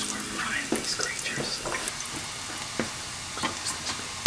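Battered insects deep-frying in hot oil in a small electric deep fryer: a steady sizzle with scattered crackles and pops.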